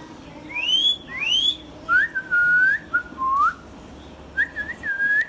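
Indian ringneck parrot whistling. Two rising whistles come first, then a run of lower swooping whistle notes, the last few shorter.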